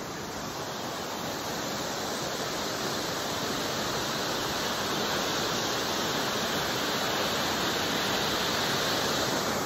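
Steady rushing of a waterfall, growing slowly a little louder.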